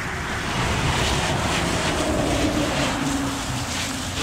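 Water spraying onto a car during a wash, a steady hiss.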